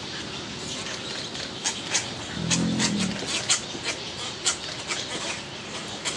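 Nesting roseate spoonbills: a run of sharp clicks and one short, low-pitched call about halfway through, over steady background noise.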